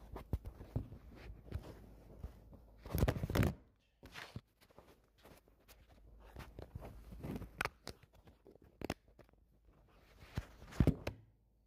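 Handling noise from a phone being carried and repositioned: a scatter of clicks, knocks and rubbing, with a louder rustling burst about three seconds in and a sharp knock near the end.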